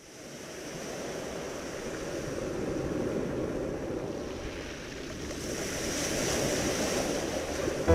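Sea waves washing on a shore, a steady rush that fades in from silence at the start and swells and eases over a few seconds.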